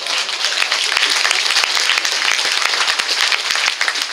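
Theatre audience applauding: many hands clapping together in a dense, steady patter, easing off near the end.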